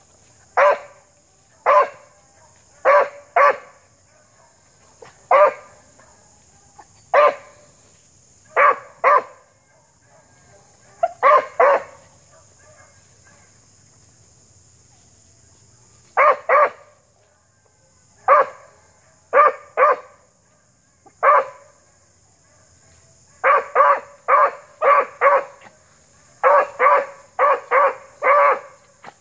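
A beagle-type hound barking as it trails by scent: short, sharp barks, single or in pairs every second or two. After a pause of a few seconds they come in two quick runs of about five or six barks each near the end.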